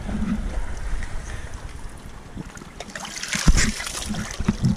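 Wind buffeting the microphone over shallow sea water lapping and splashing, with a sharp thump about three and a half seconds in.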